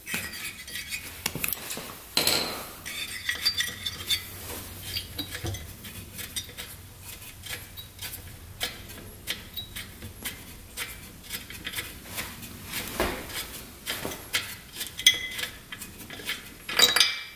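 Small metallic clicks and clinks as a spark plug is unscrewed by hand from the air-cooled cylinder head of a 1977 Suzuki RM125 two-stroke engine, irregular throughout, with a louder clatter about two seconds in and again near the end.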